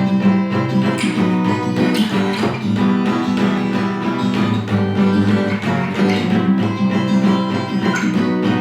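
Acoustic guitar strummed in steady chords, with no singing.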